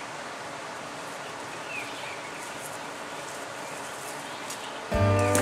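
Steady outdoor ambience with a few faint bird chirps. Near the end, acoustic guitar music starts suddenly and much louder.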